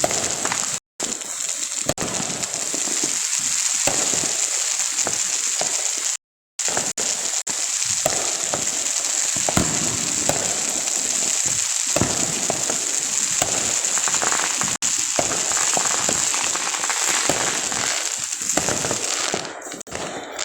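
Fireworks crackling and hissing continuously, a dense rapid spatter of small pops over a steady high hiss. The sound cuts out briefly twice, about a second in and about six seconds in.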